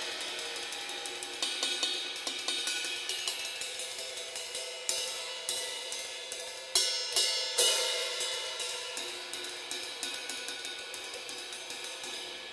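Drum kit cymbals played on their own, without drums: quick hi-hat strokes under ringing crash cymbals. There are louder crash hits about five seconds in and twice more around seven seconds.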